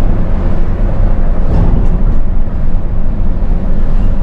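Diesel engine and road noise of an intercity coach under way, heard from on board: a loud, steady low rumble.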